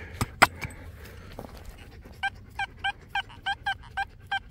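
A couple of sharp clicks, then from about two seconds in an XP metal detector beeping in short, quick, repeated tones, often in pairs, as the coil is swept back and forth over a buried target: a signal good enough to call "muy bien".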